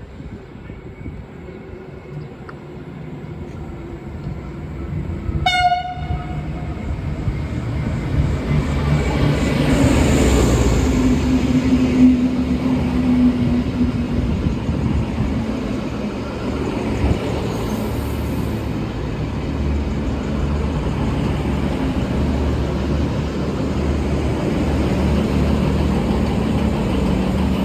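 Two coupled V/Line VLocity diesel multiple units arriving at a station: one short horn blast about five seconds in, then the diesel engines and wheel-on-rail rumble growing louder as the train pulls in, with a steady engine hum through the rest.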